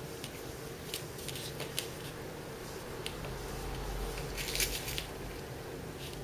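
Light rustling and small clicks of cotton fabric pieces being handled and pinned together on a tabletop, with a louder rustle about four and a half seconds in as the fabric is lifted. A faint steady hum sits underneath.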